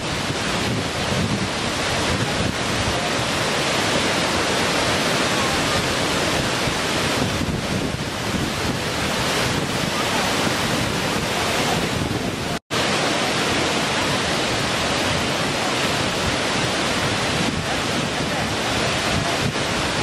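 Waterfall cascading over rock ledges: a loud, steady rush of water. About two-thirds of the way through, the sound cuts out for an instant, then resumes.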